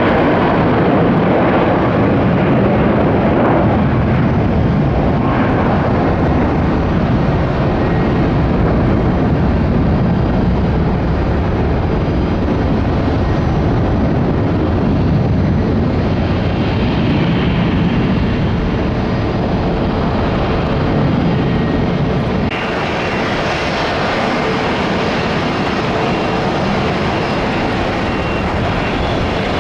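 Boeing 757-300 jet engines at take-off power, a loud steady rumble and hiss. About three-quarters of the way through, an abrupt cut to another Boeing 757-300 taking off, with more hiss in the sound.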